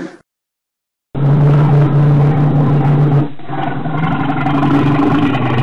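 Brown bear cubs humming while they nurse: a steady, motor-like low drone that starts about a second in, breaks off briefly past the middle, and resumes.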